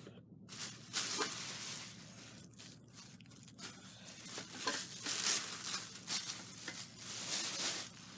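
Packing material rustling, crinkling and tearing in irregular bursts as an elevator panel is pulled out and unwrapped from its box, loudest about a second in and again around five seconds in.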